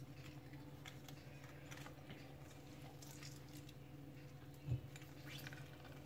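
Faint squishing and small ticks from a hand-held metal lemon squeezer pressing a lemon quarter, with juice dripping onto rice, and a soft low thump about four and a half seconds in, over a steady low hum.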